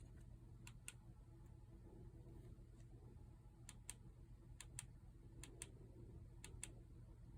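Near silence over a low steady hum, broken by faint, sharp light clicks that mostly come in quick pairs, about half a dozen times.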